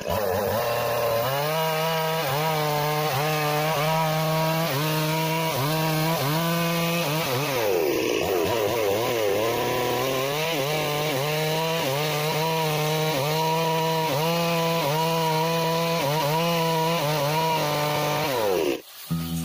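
Petrol chainsaw running at high revs as it cuts into a wooden block. Its pitch sags and recovers over and over as the chain bites into the wood and eases off. The sound cuts off suddenly just before the end.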